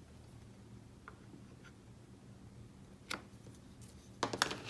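Mostly quiet, then a single light click about three seconds in and a few quick clicks and taps near the end: hard clear acrylic stamping tools handled against paper on a cutting mat.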